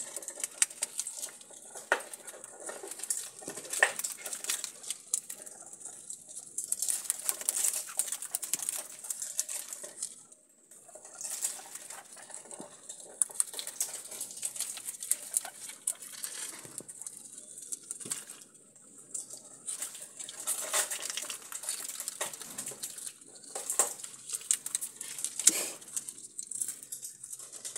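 Guinea pigs chewing and nibbling green husks, with the paper and husks rustling under them: a dense, irregular run of small crunching clicks.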